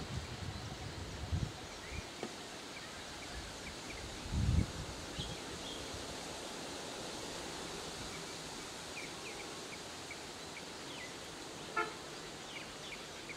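Outdoor roadside ambience: a steady hiss with scattered short high chirps of birds or insects, low thumps in the first few seconds, the strongest about four and a half seconds in, and a brief pitched toot near the end.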